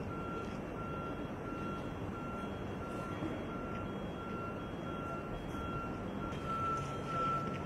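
An electronic beeper sounding one high pitch on and off, just under two beeps a second, running almost continuously from about six seconds in, over a steady outdoor din.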